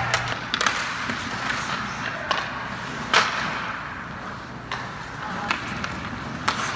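Ice hockey play: several sharp clacks of sticks and puck, with the loudest knock about three seconds in, over steady rink noise.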